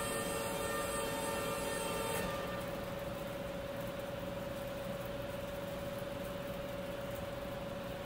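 A steady single-pitched tone, like an equipment whine or an alarm, held over an even hiss; some fainter higher tones drop out about two seconds in.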